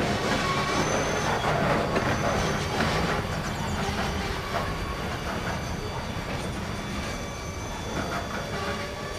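Freight train's caboose and trailing wheels rolling away on the rails, with wheel clicks over the rail joints in the first few seconds and a faint high wheel squeal. The sound fades as the train recedes.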